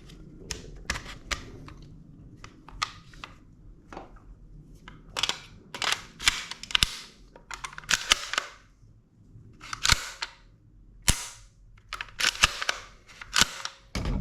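Sharp metallic clicks and clacks from handling the reassembled HK SP5 pistol: a few light clicks at first, then a run of louder clacks about a second apart.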